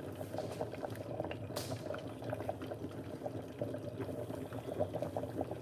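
Chicken soup simmering under the lid of an aluminium pot: a steady bubbling of small, irregular pops and gurgles. It is cooking on the hotplate's retained heat after the hotplate has been switched off.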